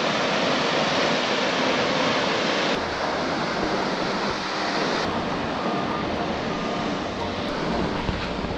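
Rushing whitewater of a mountain creek, a steady loud hiss, its tone changing abruptly about three and five seconds in.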